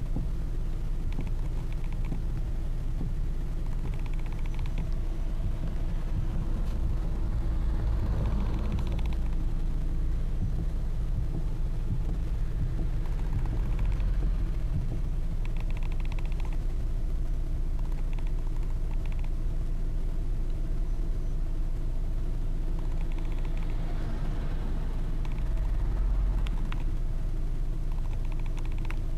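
Hyundai Elantra idling while its steering wheel is turned at a standstill, with short clusters of rapid knocking from the steering every few seconds. Replacing the intermediate shaft and its joints did not cure the knock, and the owner suspects the steering rack.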